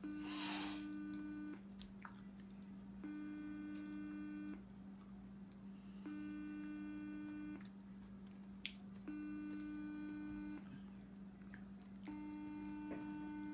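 Outgoing phone call ringing unanswered on speakerphone: a ringback tone sounding five times, about a second and a half on and a second and a half off, over a steady low hum. A brief wet noise at the very start as fingers are licked.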